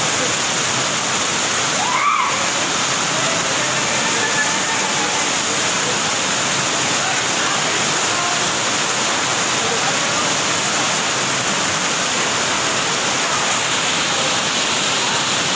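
Fast-flowing muddy floodwater from heavy rain rushing and churning in a steady, unbroken roar.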